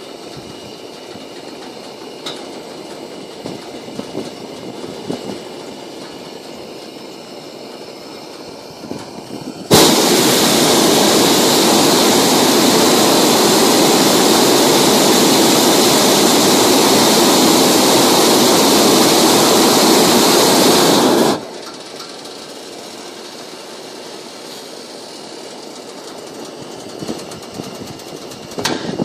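Hot-air balloon's propane burner firing in one long blast of about twelve seconds, a loud even roar that starts suddenly about ten seconds in and cuts off sharply; before and after it only a low hiss.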